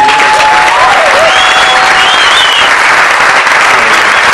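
A congregation clapping and cheering in praise, a loud, steady applause. Over it, a few voices shout and cheer with wavering high calls in the first couple of seconds.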